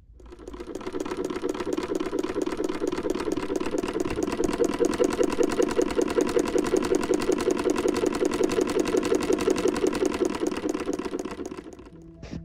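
Sewing machine running at a fast, even stitching speed, a rapid mechanical clatter that builds up over the first second and fades out near the end.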